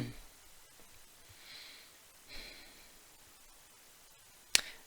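A woman's soft breathing during a pause in speech, two faint breaths, then one short sharp click near the end.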